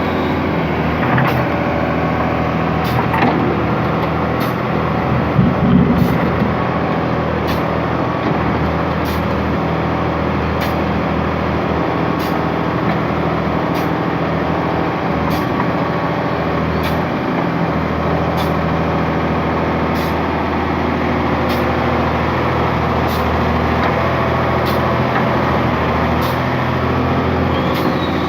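Case excavator's diesel engine running steadily under hydraulic work, louder for a moment about five to six seconds in. A faint regular tick comes about once a second.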